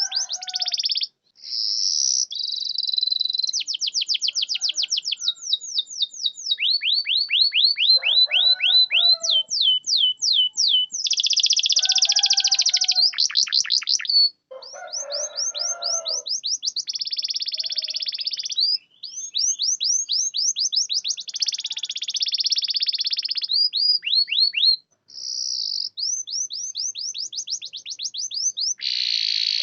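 Domestic canary singing a long, almost unbroken song. Runs of rapid, repeated down-slurred notes alternate with buzzy rolls, with a few very short pauses between phrases.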